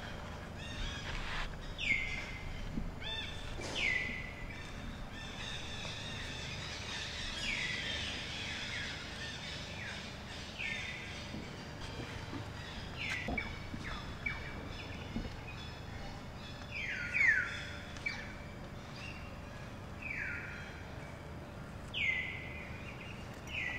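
Short, high chirping calls, each sliding down in pitch, repeated a dozen or so times at irregular intervals over steady outdoor background noise. The loudest pair comes about seventeen seconds in.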